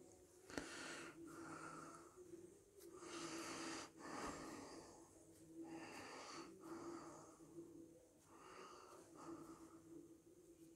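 Faint, slow breathing close to the microphone, a few breaths one every second or two, over a faint steady hum.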